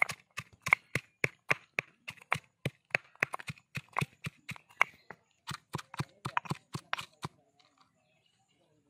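Rapid, evenly spaced sharp knocks, about three to four a second, with a short break about five seconds in. They stop about seven seconds in.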